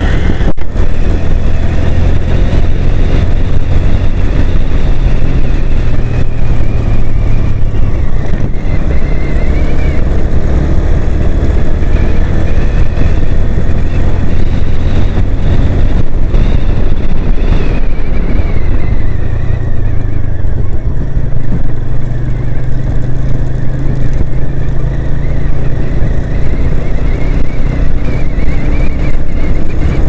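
Motorcycle engine running steadily at road speed, its note shifting a little near the middle, with heavy wind noise on the microphone.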